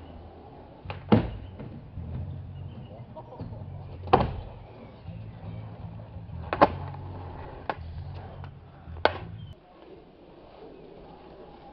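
Skateboard rolling back and forth on a miniramp: a steady low rumble of the wheels, broken by sharp clacks of the board slapping down on the ramp about every two and a half seconds, four loud ones and a lighter one between them. The rolling rumble stops about nine and a half seconds in.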